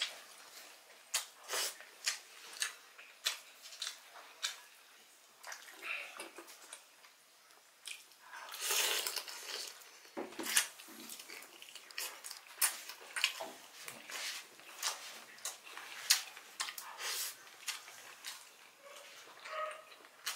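Close-miked chewing and lip-smacking of someone eating grilled squid and chicken by hand: many short wet mouth clicks, with a louder noisy stretch of about two seconds around eight seconds in.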